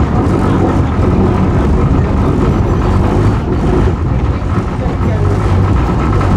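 Tram running along its rails, heard from inside the car: a loud, steady rumble of wheels and running gear, with a faint steady whine above it.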